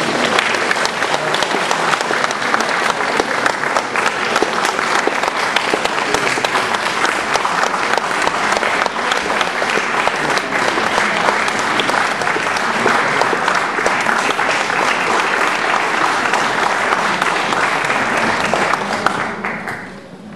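Audience applauding: dense, continuous clapping from a full hall, dying away near the end.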